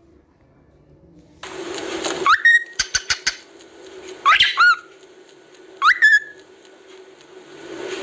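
Umbrella cockatoo calling: a harsh screech starting about a second and a half in, then three loud rising whistles about two seconds apart, with a few sharp clicks between the first two.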